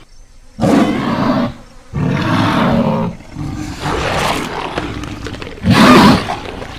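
Dinosaur roar sound effects: about four rough roars of a second or so each, the loudest near the end.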